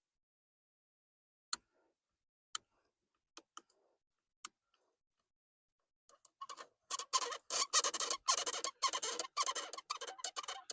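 Metal-on-metal clicking from a seized steel turn-signal stalk piece being twisted in its cast-aluminium steering-column housing: a few separate clicks, then from about six seconds in a fast, continuous run of clicking and scraping as the corroded part begins to turn.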